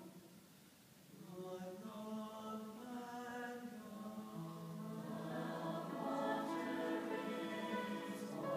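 Mixed-voice swing choir singing held chords. After a brief hush at the start, the voices come back in about a second in and swell louder toward the end.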